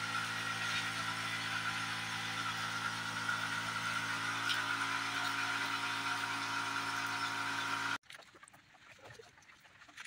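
A machine running steadily, a drone of evenly spaced pitched tones that holds level and then cuts off suddenly about eight seconds in, leaving faint light clicks.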